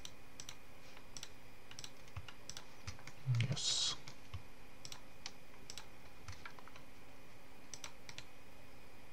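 Computer mouse and keyboard clicks, short and irregularly spaced, with a brief breathy sound about three and a half seconds in.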